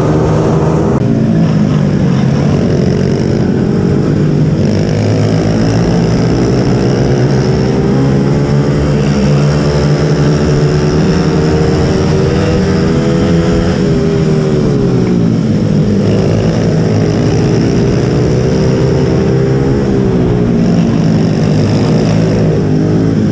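Mini bike engine running hard under racing load, its pitch falling as the throttle closes and climbing again as it opens, with the deepest drop about fifteen seconds in.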